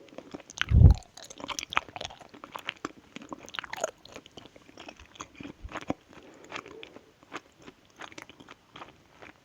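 Close-miked mouth sounds of someone chewing and biting sweets: many small wet clicks and smacks at an uneven pace, with one low thump about a second in.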